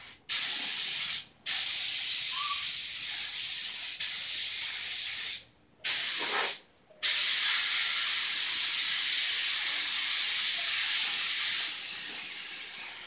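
Paint spray gun hissing as clear coat is sprayed, in four trigger pulls that start and stop sharply: a short one, a longer one of about four seconds, a brief one, then a long pass of about five seconds.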